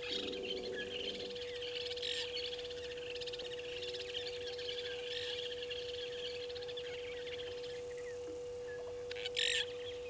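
Several wild birds chirping and twittering at once in a busy, continuous chorus, over a steady hum. A short, louder burst of calling comes near the end.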